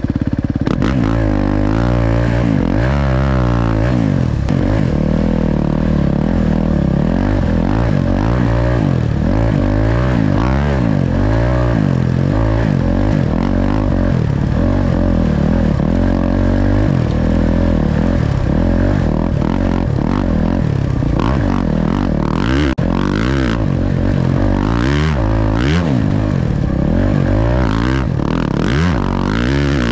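Honda dirt bike engine being ridden hard on a sandy trail, its revs climbing and dropping over and over as the throttle is worked through the gears.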